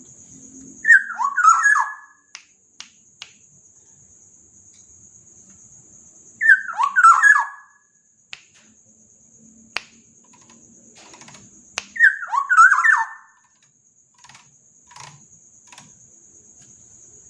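Black-naped oriole (kepodang) singing: three short fluty whistled phrases about five seconds apart, each a quick run of notes sliding downward. A steady high-pitched insect-like buzz runs underneath, with a few faint clicks between the phrases.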